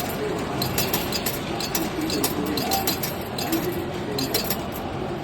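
Repeated small metallic clinks and clicks from a station's automatic ticket vending machine in use, over a low murmur of voices in the concourse.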